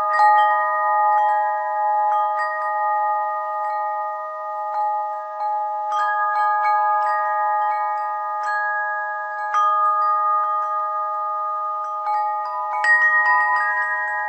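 Chime bells ringing, struck again and again at uneven moments, with several clear pitches sounding on and overlapping one another. Small clusters of strikes come every few seconds.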